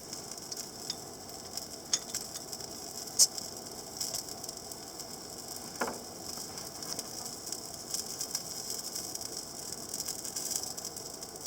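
Cheese dogs sizzling in a frying pan, a steady high hiss, with a few scattered clicks and knocks over it.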